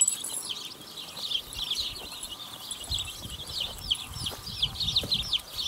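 A crowd of young chicken chicks peeping: many short, high, downward chirps overlapping without a break.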